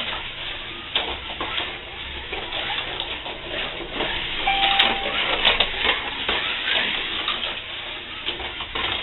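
Cheetah-chassis slot cars lapping a routed wooden track at 10 volts: a steady rattling buzz with frequent clicks. One short beep sounds about halfway through.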